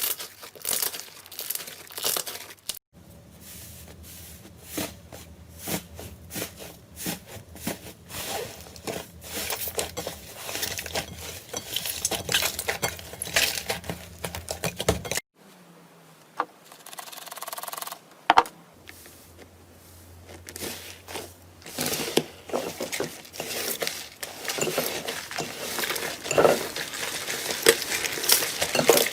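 Slime being squeezed, pressed and stretched by hand, making dense, irregular crackling clicks and small pops. The sound changes abruptly twice as one slime clip gives way to the next.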